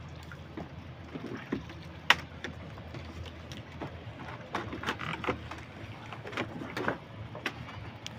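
Small outrigger fishing boat being worked by hand through the harbour: water sloshing and splashing around the hull and floats, with scattered sharp knocks from the boat's bamboo and pipe frame, over a low steady hum.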